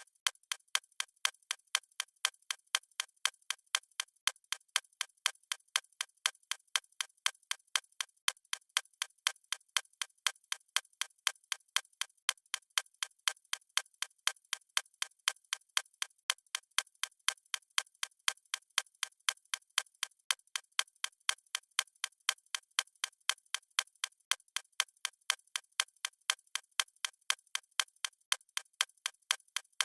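Mechanical watch ticking: a fast, even run of small sharp ticks that never changes pace.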